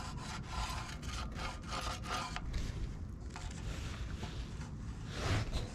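Paint marker rubbing and scraping along a steel subframe as a cut line is drawn, in a run of short strokes.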